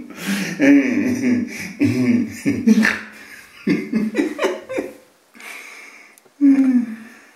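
A man's voice making wordless vocal noises in short bursts, with a brief pause about five seconds in and one last burst near the end.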